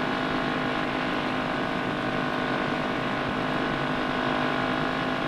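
Motorcycle engine running at a steady cruising speed: an even drone holding one pitch.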